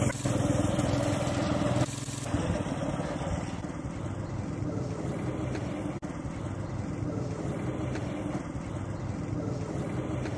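Go-kart's 212cc single-cylinder four-stroke engine running as the kart drives around, heard from a distance. It is louder for about the first two seconds, then fainter and steady as the kart pulls away.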